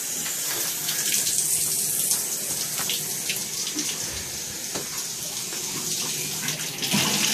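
Handheld shower sprayer running, its water hissing steadily against a dog's wet coat in a bathtub.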